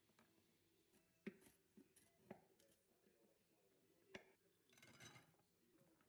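Faint sharp knocks of walnut and chocolate pieces handled on a wooden cutting board, three clear ones about a second apart, then a short rustling scrape near the end.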